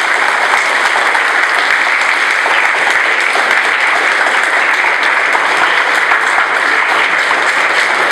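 An audience applauding, many hands clapping at once and holding steady.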